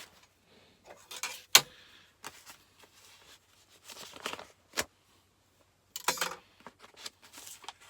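Paper and packaging rustling and crinkling as a large envelope is handled and opened, with a few sharp clicks and knocks. The loudest is a single snap about a second and a half in.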